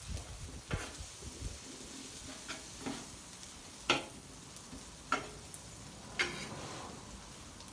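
Metal spatula scraping and clacking on a Blackstone flat-top griddle while tossing noodles and shredded cabbage, about six sharp strokes roughly a second apart, the loudest about four seconds in. Underneath is a steady sizzle of food frying on the hot steel.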